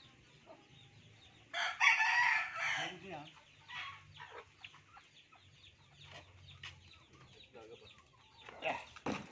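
A rooster crows once, loudly, about one and a half seconds in, the crow lasting over a second. Chickens cluck with short calls through the rest, and a short low thump comes near the end.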